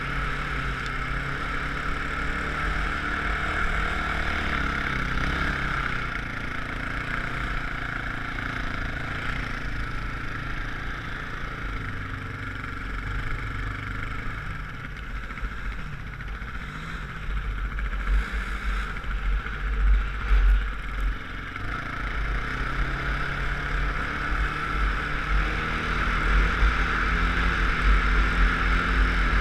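Off-road vehicle engine running while riding over sand, its pitch rising and falling with the throttle. Wind buffets the helmet-mounted microphone, heaviest about two-thirds of the way through.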